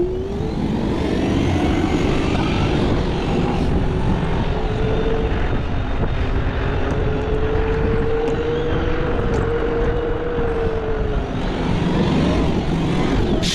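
A motor vehicle running, with a steady low rumble of road and engine noise and a drawn-out drone that slowly rises and falls in pitch.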